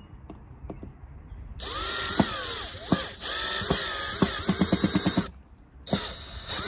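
Milwaukee brushless cordless drill driving screws through a steel bracket into wood: the motor whines in a long run of a few seconds, its pitch rising and falling under load, with a stretch of rapid clicking in the middle. After a brief pause it starts again on the next screw near the end.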